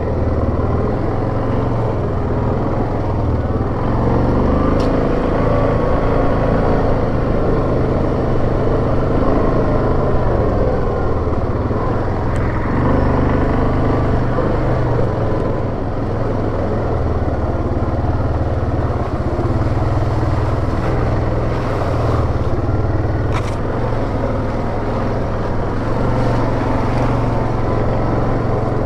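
2017 Yamaha Grizzly 700 ATV's single-cylinder engine running steadily as it is ridden along a trail, with a couple of faint clicks.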